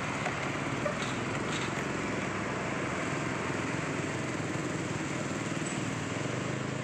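Steady road traffic: the engines of a car-carrier truck and small motorbikes running as they move along the road.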